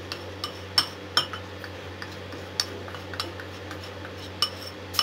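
A spoon and ceramic crockery clinking: about seven sharp, separate taps and knocks with a short ring, as coffee and sugar are tapped and scraped out of a bowl.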